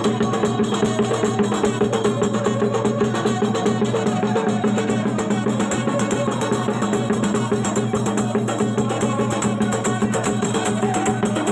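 Loud live folk music driven by fast dhol drumming, a dense unbroken beat.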